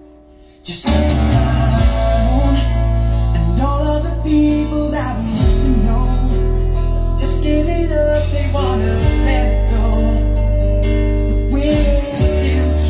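A music track played through a Numark DJ controller cuts in loudly about a second in, after a brief quiet moment. It has deep held bass notes that shift pitch every few seconds, with plucked guitar above.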